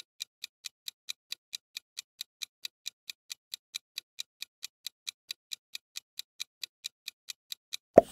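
Clock-ticking sound effect for a quiz countdown timer: short, even ticks at about five a second. A sudden, louder pop near the end.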